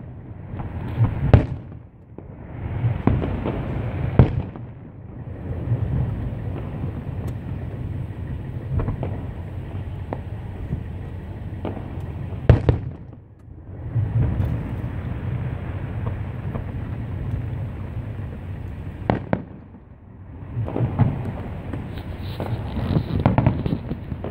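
Distant fireworks display: aerial shells bursting with sharp booms at irregular intervals, a steady rumbling noise between them that drops away briefly a few times, and a quicker run of bursts near the end.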